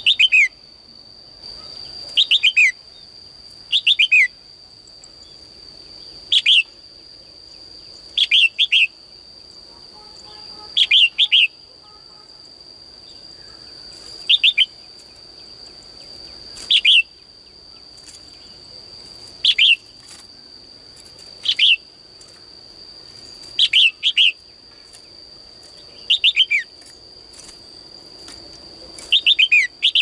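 Caged female red-whiskered bulbul calling: short bright phrases of two to four quick falling notes, repeated about every two seconds.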